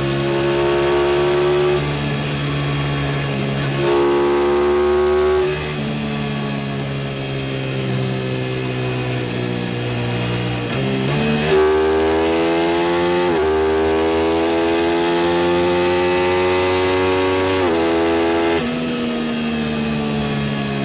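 Aprilia RS660's parallel-twin engine pulling hard under a rider, its pitch climbing slowly and then dropping at each of several gear changes, with one quick dip and sharp rise in revs near the middle.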